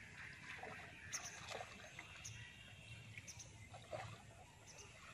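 Faint outdoor ambience: a steady low rumble and a thin high hiss, with a few short, scattered calls of small animals or birds.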